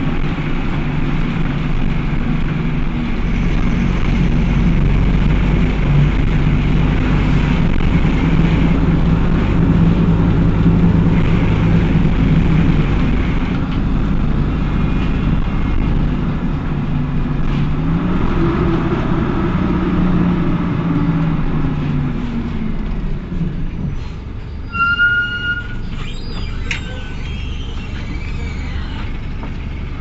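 Cummins ISBe four-cylinder diesel of a midibus running under way, its radiator fan engaged throughout: the fan is on because these engines were known to run hot. The engine note rises about halfway through, then falls away after about 23 seconds, and a brief high squeal follows.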